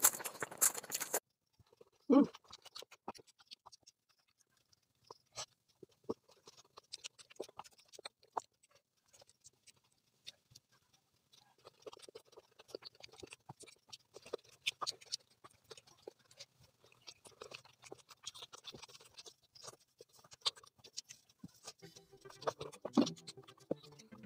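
Close-miked eating sounds: a hand squishing wet curry rice, then sparse wet mouth clicks, lip smacks and chewing from eating by hand and licking fingers.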